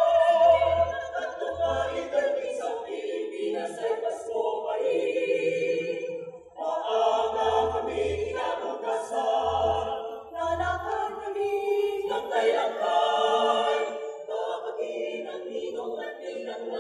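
A mixed choir of women's and men's voices singing together in harmony, with a few soft low thuds underneath now and then.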